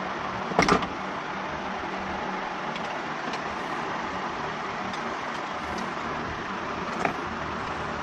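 Sharp clicks of wires and hand tools being handled on a workbench: a loud double snap under a second in and a lighter click near the end, over a steady hiss with a faint hum.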